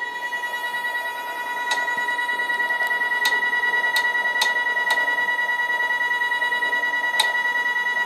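570 oz-in stepper motor driving the sawmill head up through a 40:1 gearbox and chain: a steady high-pitched whine with a fast pulsing, and a few light clicks.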